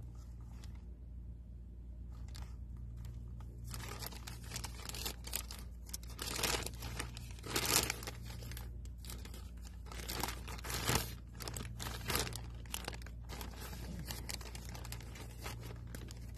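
Plastic Amazon mailer bag being torn open and crinkled by hand: a run of crackling tears and rustles that starts about four seconds in, is loudest in the middle and eases off near the end.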